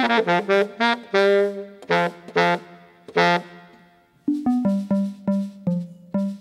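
Baritone saxophone playing a jazz line: quick runs of notes, a brief pause about four seconds in, then a string of short, clipped notes.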